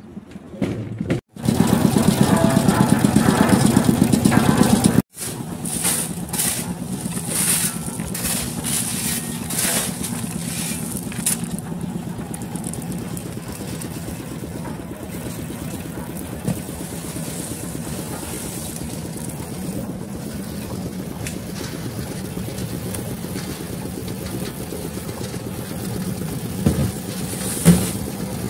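Concrete mixer's engine running steadily with a low hum, under scattered knocks and scrapes of site work. The sound drops out twice, briefly, in the first five seconds.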